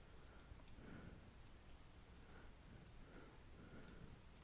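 Near silence with about a dozen faint, irregular clicks from a computer mouse as the brush tool is worked over the image.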